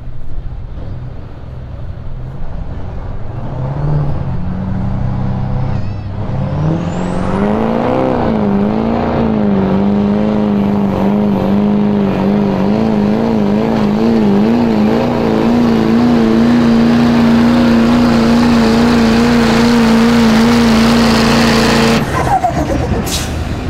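Diesel GMC Sierra pickup's Duramax V8 engine at full throttle pulling a weight-transfer sled. The engine note climbs, wavers up and down for several seconds, then holds high and steady and grows louder, breaking off abruptly near the end.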